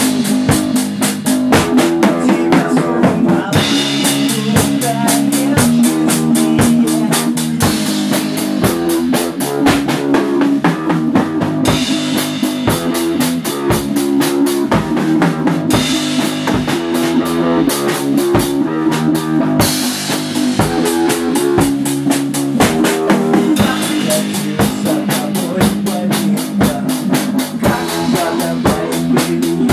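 Rock band playing a song: a drum kit keeps a steady beat with kick, snare and rim clicks under bass guitar and guitar, with the cymbals ringing louder through some stretches.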